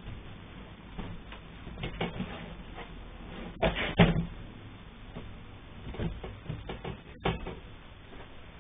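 A few sharp knocks and clatters of the door or cupboard kind, the loudest two close together about three and a half and four seconds in, with smaller ones around six and seven seconds.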